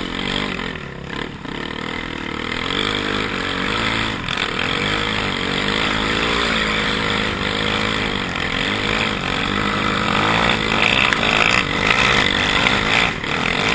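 Kawasaki KFX400 sport quad's single-cylinder four-stroke engine being ridden hard, its pitch rising and falling again and again as the throttle is worked, with wind rushing over the helmet-mounted microphone.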